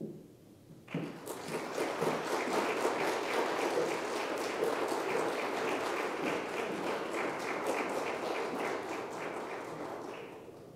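Audience applauding: the clapping starts about a second in, swells quickly, holds, then tapers off near the end.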